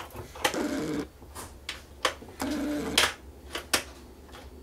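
Small screwdriver clicking and scraping against a stuck screw in a projector's plastic housing, with scattered sharp clicks and two short scrapes about two seconds apart.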